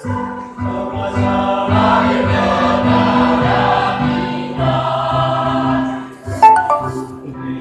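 A choir singing in parts, holding long chords over a steady low line. A sharp knock cuts in briefly about six and a half seconds in, the loudest moment.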